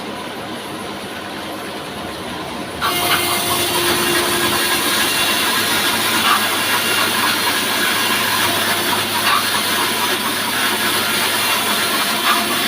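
Horizontal band sawmill running with a steady mechanical noise. About three seconds in it becomes abruptly louder and hissier, and stays that way.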